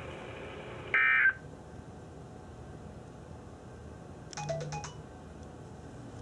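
NOAA Weather Radio end-of-message SAME data burst: a short, loud warbling digital squeal about a second in, marking the end of the warning. It is followed by low receiver hiss and a brief cluster of faint electronic beeps about four seconds in.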